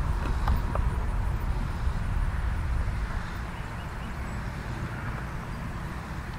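Steady low outdoor rumble, louder for the first three seconds, with two faint clicks about half a second in.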